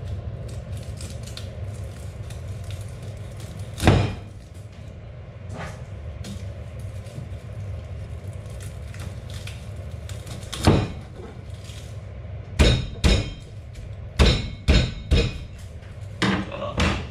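Heavy cleaver coming down on a plastic cutting board while cutting up garlic. It gives sharp knocks: one about four seconds in, another near eleven seconds, then a quicker run of about seven in the last five seconds. A steady low hum runs underneath.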